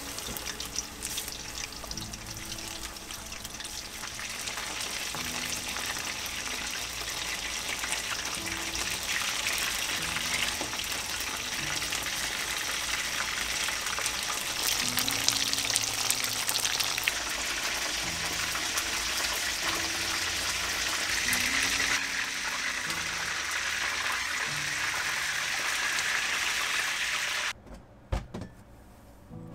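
Battered chicken nuggets frying in hot oil in a pan: a dense, steady sizzle that grows louder, with soft background music underneath. Near the end the sizzle cuts off suddenly and a single knock follows.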